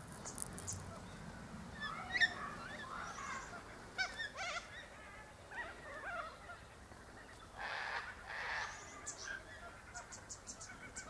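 Wild birds calling: a mix of short chirps and whistled notes, two longer harsh calls about eight seconds in, and a quick run of high ticks near the end.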